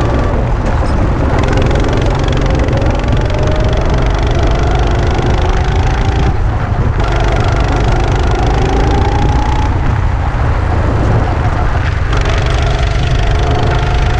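Go-kart engine running under throttle, heard from on board: its pitch climbs in long rises and drops back a few times as the throttle eases, over a heavy low rumble.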